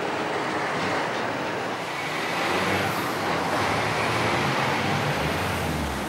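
Semi-trailer truck's engine and road noise as the truck pulls away down a street, with a low engine drone growing louder near the end.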